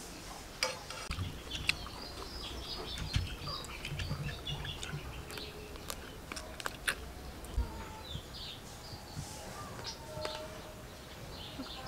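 Small birds chirping in short, scattered calls, with sharp clicks and taps from eating: a knife and fingers working at a plate of chicken, and chewing.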